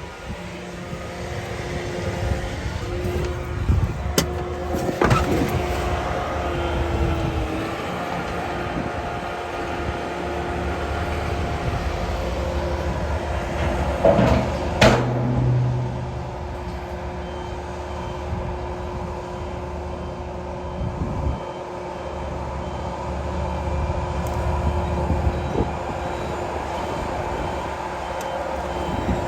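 Heavy earthmoving machinery running steadily, with sharp metallic clanks about four and fifteen seconds in. A reversing alarm beeps faintly in the second half.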